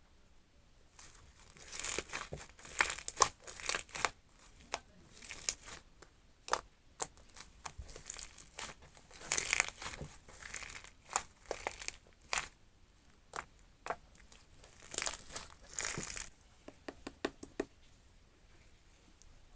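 Shaving-foam slime being squeezed and pressed by hand, giving irregular runs of sticky, crackly clicks and pops. It starts about a second in, and a quick string of small clicks comes near the end.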